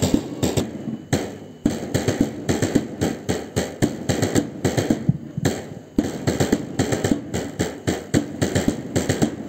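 Marching drums beating a march rhythm, several sharp hits a second.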